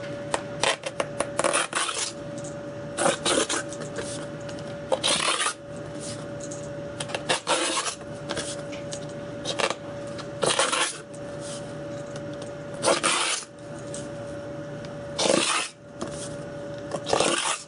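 Hand deburring tool scraping along the edge of a 1/8-inch clear acrylic disc, chamfering it in short strokes about every two seconds, with small clicks between strokes.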